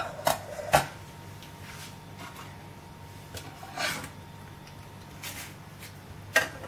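Crockery being handled on a kitchen counter: a few separate sharp knocks and clinks, with a brief scrape about four seconds in.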